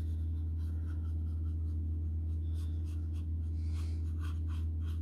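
Pen scratching on paper in short sketching strokes, which come more often in the second half, over a steady low hum.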